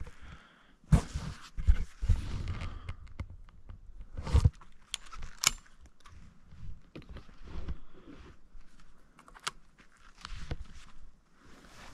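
Irregular rustling and crunching of dry grass, with handling clicks and low gusts of wind on the microphone. The loudest bursts come about a second in and again about four and a half seconds in.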